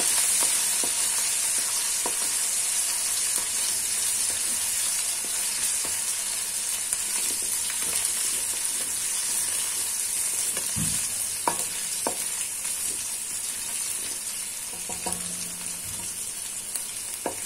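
Ginger-garlic paste sizzling in hot oil in a metal karahi: a steady frying hiss that slowly fades, with a wooden spoon stirring and a few clicks of the spoon against the pan.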